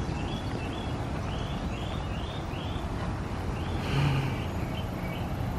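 Steady low outdoor rumble, with a small bird chirping a quick run of short calls, about two a second, through the first few seconds.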